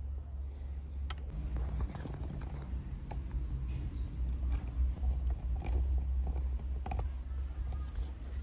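Fingers working through hair close to the microphone: irregular small clicks and crackles of hair being parted and rubbed at the scalp, over a steady low rumble.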